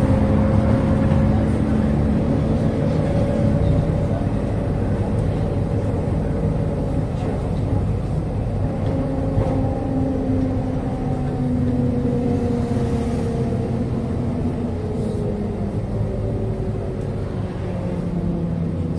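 MAZ-103 city bus heard from inside the cabin while driving: its engine and drivetrain run steadily under road noise, the engine note drifting slowly in pitch with speed.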